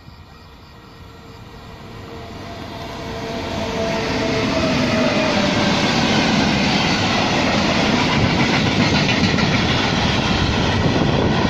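Freight train of empty timber wagons behind a Medway class 4700 electric locomotive, building as it approaches and then passing close by. From about four seconds in the wagons' wheels rumble and clatter steadily over the rails.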